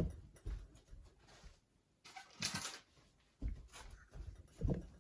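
Quiet handling noises: several soft low bumps and a brief rustle about two and a half seconds in.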